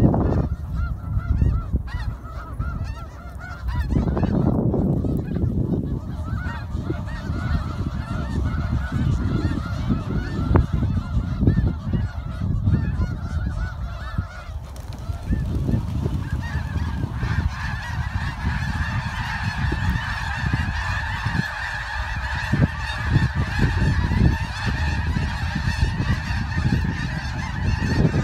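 A large flock of snow geese honking, a dense chorus of many overlapping calls that grows fuller and louder from about halfway through, over a steady low rumble.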